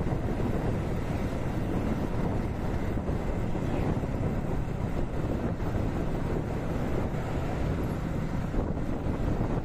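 Wind buffeting the microphone of a riding motorcycle, with the steady running of the bike and road noise underneath.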